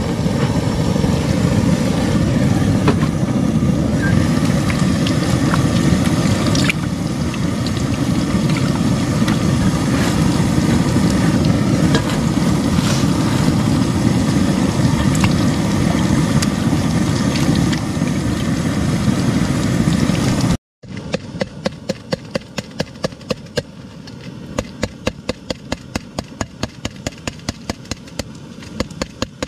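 Water poured from a jug over raw chicken in a steel pot and the chicken washed by hand, over a loud steady roar. After a sudden cut about 21 seconds in, it turns quieter, with a run of light regular clicks, about three or four a second.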